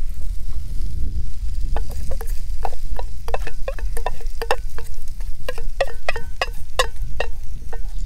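A wooden spatula scraping and knocking inside an upturned metal cooking pot, knocking out chopped onions. The knocks start about two seconds in and come faster toward the end, each setting the pot ringing briefly.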